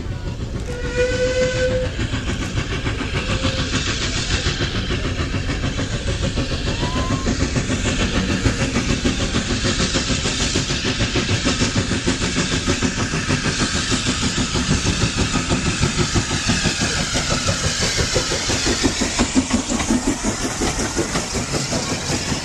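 Steam locomotive sounds its whistle once, about a second in, in one steady note of about a second. It then approaches and runs past hauling coaches, with a rhythmic running clatter of wheels on the rails that grows as the train draws level.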